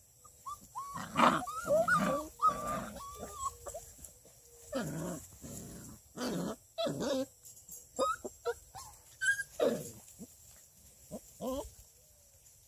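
Six-week-old redbone coonhound puppies playing, giving short high whines and yips that bend in pitch, in scattered bursts with quiet gaps between.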